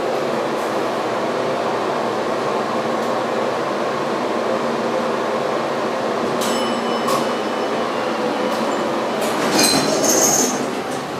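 Baxter and Sons hydraulic elevator running as the glass car travels between floors: a steady mechanical hum and rumble. A short metallic ring comes about six and a half seconds in, and a few clicks come near the end as the hum eases off.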